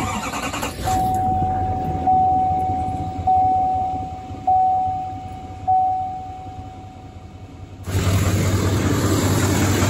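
Warning chime of a 2018 Chevrolet Silverado 2500 HD dinging five times about a second apart, then about eight seconds in its Duramax 6.6-litre V8 turbodiesel starts and settles into a steady idle.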